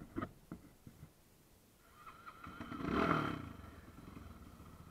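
Off-road motorcycle engine revving once, swelling about three seconds in and falling back to a faint steady running, after a few light clicks.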